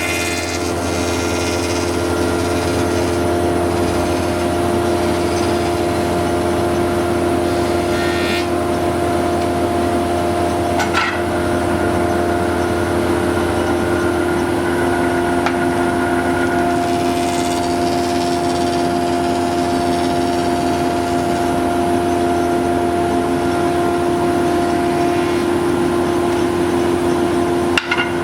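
Thickness planer running steadily with a constant hum while lengths of timber, held at an angle in a jig, are fed past its cutter head to plane a bevelled edge. A couple of brief knocks come about eight and eleven seconds in.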